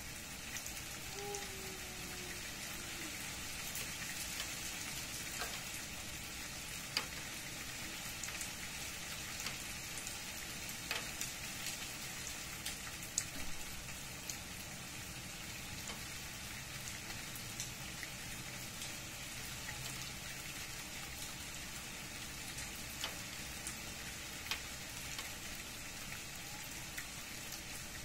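Steady rain falling on tree leaves and leaf-covered ground, with single louder drops ticking here and there.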